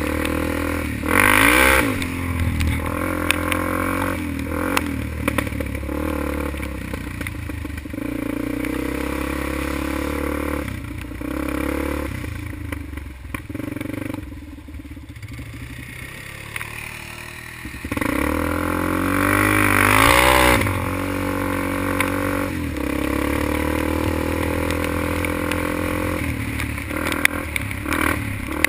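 ATV engine running and revving along a wet dirt trail, its pitch rising and falling with the throttle, with two loud surges about a second in and around twenty seconds in. The chassis rattles and clatters over the rough ground.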